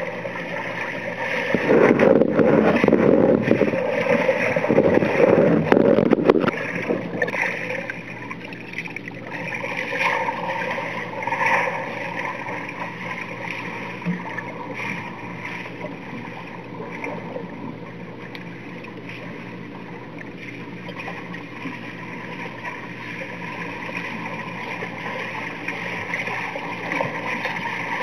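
Muffled underwater churning and bubbling of a swimmer's strokes and kicks, heard through a submerged camera. It is loudest for a few seconds near the start as the swimmer passes close, surges again more briefly twice after that, and sits over a steady hum.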